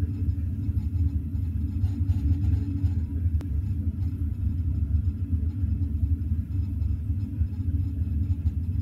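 Steady low rumble of a Eurostar Class 373 train running at speed, heard from inside the carriage, with one faint click about three and a half seconds in.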